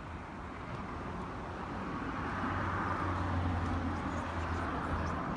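A passing road vehicle: a rushing sound that swells to its loudest about three seconds in and then eases slightly, over a steady low hum.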